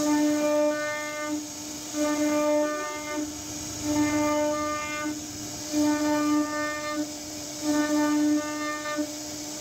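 CNC router spindle whining at one steady pitch as its carving bit cuts relief into a wooden door panel. The whine swells louder and harsher for about a second at a time, roughly every two seconds, as the cutter works through the wood, over a constant hiss.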